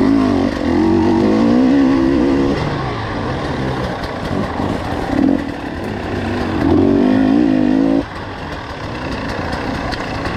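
Two-stroke enduro dirt bike engine being ridden, revving up and down as the throttle is worked over rutted ground; the revs drop off sharply about eight seconds in as the throttle is shut.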